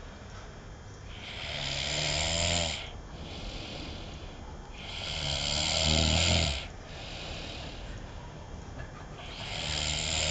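A sleeping man snoring: three long snores about four seconds apart, each swelling up and then stopping sharply.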